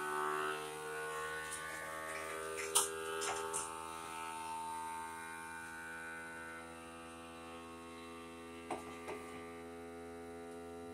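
FoodSaver vacuum sealer's pump running steadily with a hum, drawing the air out of a jar through its accessory hose. A few light knocks come about three seconds in and again near the end.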